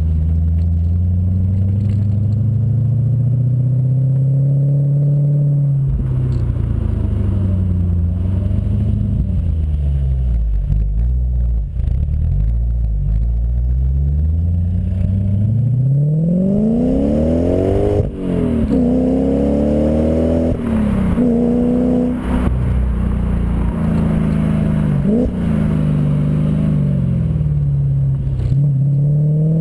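Audi S4 B6's 4.2-litre V8 through a custom exhaust, revved up and down repeatedly: slow rises and falls at first, then a run of quick, sharp blips through the second half, ending on another rising rev.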